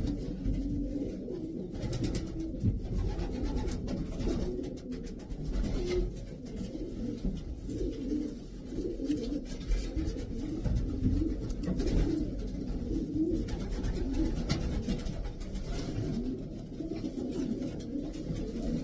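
Racing pigeons cooing: a run of low, wavering coos, one after another.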